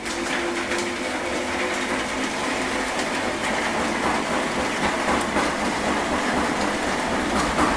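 Electric honey extractor running, its motor spinning a load of honeycomb frames inside the drum with a steady mechanical noise.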